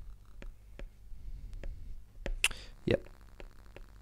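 Stylus tip ticking against a tablet's glass screen while handwriting, a sharp tap every few tenths of a second. About two and a half to three seconds in there is a brief louder noise followed by a soft thump.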